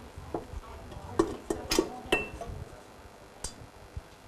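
Stainless-steel bowls and kitchen utensils clinking and knocking as they are handled: a handful of separate clinks, one a little after two seconds leaving a brief metallic ring.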